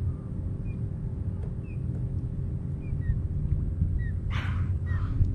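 Steady low rumble of wind buffeting the microphone, with a faint short high chirp repeated about every half second. About four seconds in comes a brief breathy whoosh.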